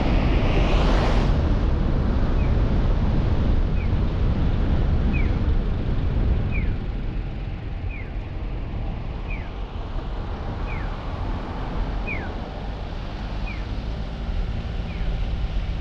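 Road and wind noise from a car driving through town, easing off about six seconds in. A short falling electronic-sounding chirp repeats about every second and a half, starting about two seconds in.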